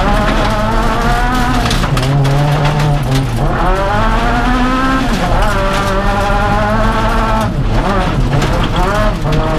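Honda Civic Type-R rally car's four-cylinder engine heard from inside the cabin at full speed, the revs climbing and dropping several times as it shifts and lifts. Tyres run on loose gravel, with stones clicking against the car.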